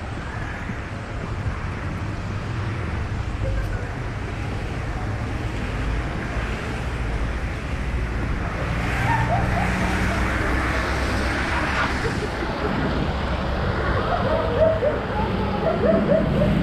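Street traffic on a rain-wet road: passing cars and the steady hiss of tyres on wet pavement, growing louder toward the end.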